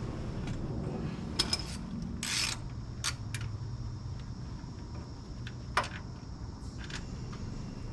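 Scattered light metallic clicks and knocks with a short scrape a couple of seconds in, over a low steady hum: hand tools at work on the engine.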